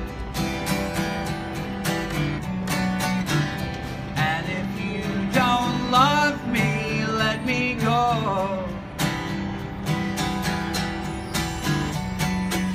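Acoustic guitar strummed steadily, with a man's voice singing a melody without clear words from about four to eight seconds in.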